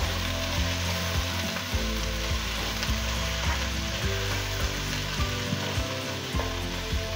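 Sliced onions and green chillies sizzling steadily in hot coconut oil in a nonstick pan, being sautéed until soft. They are stirred with a spatula that knocks lightly against the pan now and then.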